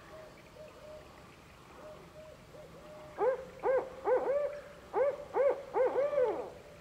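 Barred owl calling to another barred owl: a loud series of about nine hoots over three seconds, the last notes drawn out and falling. Fainter hoots come before it in the first half.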